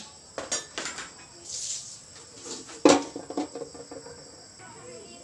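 Metal pot lid clanking onto a cooking pot, a ringing strike about three seconds in followed by a few lighter rattles, with smaller metal clicks before it.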